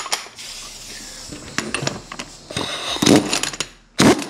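Metal clicks and clatters of hand-handled steel parts and tools as the nut is put back onto the threaded end of a hydraulic cylinder's piston rod. There are scattered clicks at first, then thicker clusters of knocks, with the loudest clatter near the end.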